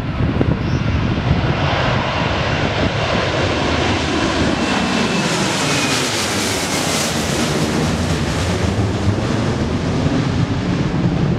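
Airbus A330-200's twin turbofan engines at take-off thrust as the jet climbs out directly overhead: a loud, steady jet roar whose hiss is brightest as it passes over about six seconds in, with a faint whine falling in pitch as it goes by.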